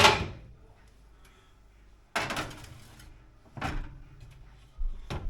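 A series of hard kitchen clunks and knocks: a sharp bang at the start with a short ringing tail, then heavier clunks about two, three and a half, and five seconds in.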